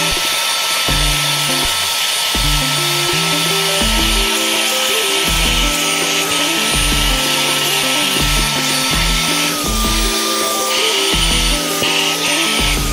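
Portable carpet and upholstery spot cleaner running, a steady motor whine over loud suction hiss as the nozzle is drawn across fabric, the whine dipping slightly in pitch about ten seconds in. Background music with a bass line plays over it.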